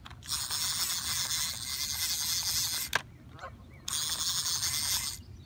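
Spincast fishing reel's drag buzzing as a hooked carp pulls line off against it, in one long run of nearly three seconds and a shorter one about four seconds in, with a sharp click between them.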